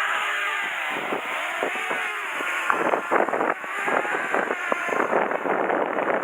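Electric motors of a radio-controlled aircraft whining, their pitch bending up and down as the throttle changes, with strong wind buffeting the microphone.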